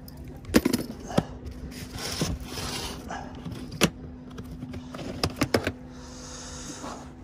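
Scattered sharp clicks and knocks of gear being handled, with a cluster of plastic clicks a little after five seconds in as a plastic cooler is opened. A faint steady low hum runs underneath.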